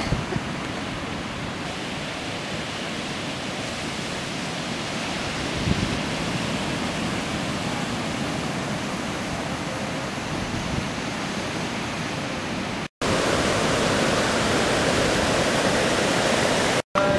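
Ocean surf breaking on a sandy beach: a steady wash of noise, broken twice by brief silent gaps, about two-thirds of the way through and near the end.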